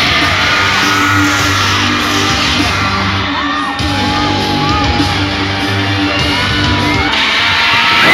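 Concert intro music over an arena PA, steady held chords and bass, with a crowd of fans screaming and whooping over it. Near the end the music stops and the screaming gets louder.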